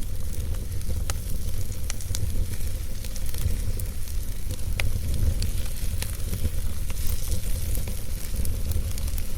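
Campfire burning, crackling with scattered sharp pops at irregular intervals over a steady hiss and a strong low rumble.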